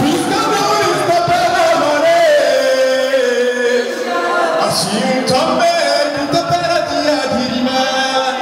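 Live music: a man sings into a microphone, with other voices singing along over the band.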